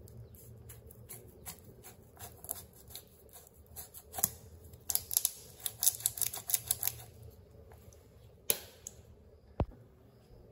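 A small plastic spoon being tapped and shaken to sprinkle dried mixed herbs into a glass bowl of beaten eggs. It makes a run of light, quick clicks that come thickest about five to seven seconds in, then one louder tap.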